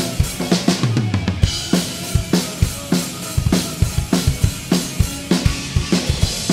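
Drum kit played live in a steady driving beat of kick, snare and cymbals. About a second in, the cymbals stop briefly under a low held note, then the beat picks up again.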